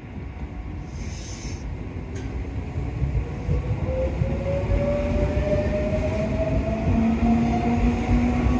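Tobu 8000-series electric train 8111F pulling out of the station and accelerating past. Its traction motors give a whine that rises slowly in pitch from a few seconds in, over a low rumble that grows steadily louder.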